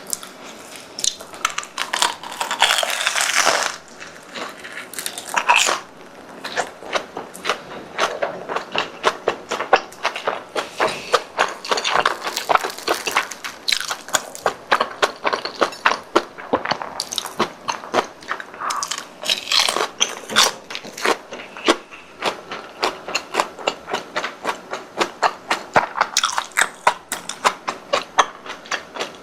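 Close-miked chewing and crunching of crispy deep-fried croquette crust, a dense run of small crackling crunches with a few louder, noisier stretches.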